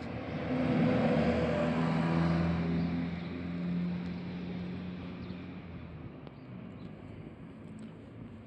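A motor vehicle's engine passing by, a low steady hum with a rush of noise. It grows louder over the first couple of seconds and then slowly fades away.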